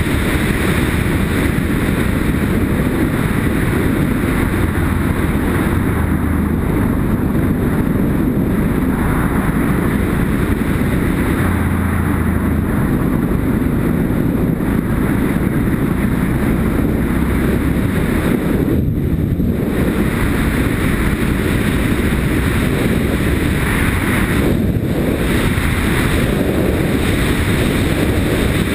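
A Yamaha Ténéré motorcycle riding at steady speed, recorded from a helmet-mounted camera: wind rushing over the microphone over the low drone of the engine.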